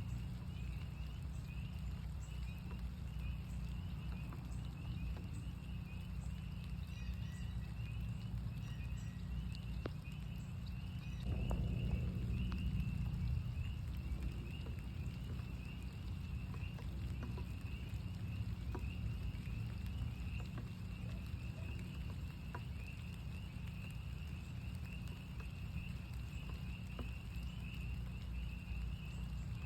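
A chorus of northern spring peepers, many frogs giving short, high, rising peeps over and over without pause, over a low rumble with scattered drips of rain. About eleven seconds in, a louder low rush swells and fades over a couple of seconds.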